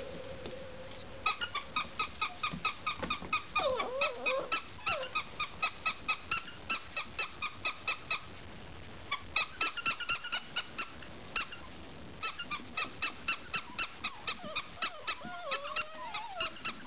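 Squeaky sock toy being chewed by miniature dachshund puppies, giving rapid runs of short, even squeaks, about four a second, with brief pauses between runs. A few short wavering whines from a puppy are mixed in.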